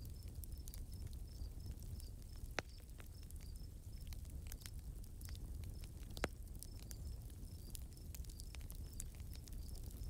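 Night-time nature ambience: a cricket chirping at an even pace, about two to three chirps a second, over scattered crackles and pops and a low rumble. Two pops stand out louder, about a quarter and two thirds of the way through.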